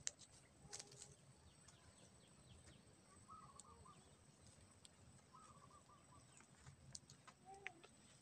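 Near silence: faint scattered crackles from a small fire burning in dry grass, with a few faint distant bird calls.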